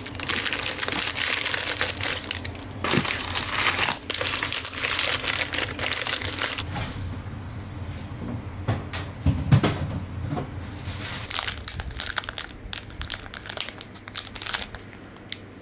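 Plastic protein-bar wrappers crinkling and rustling as bars are handled and packed from cardboard boxes into a plastic storage container, dense for about the first seven seconds, then sparser, with one louder knock about nine seconds in. Near the end, a bar's wrapper being torn open.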